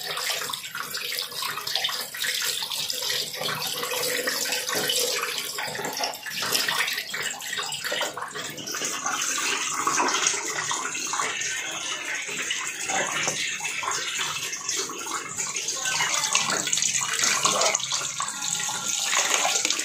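Kitchen tap running into a steel bowl of leafy greens, water splashing as the leaves are rinsed and handled. The flow gets a little louder and brighter from about nine seconds in.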